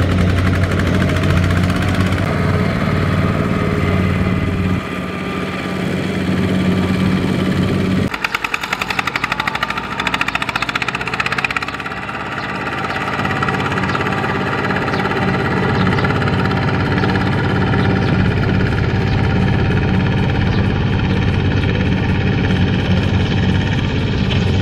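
Single-cylinder diesel engine of a two-wheel walking tractor running steadily under load as it pulls a trailer, with a fast even firing beat. The engine sound changes abruptly a few times, about 5, 8 and 12 seconds in.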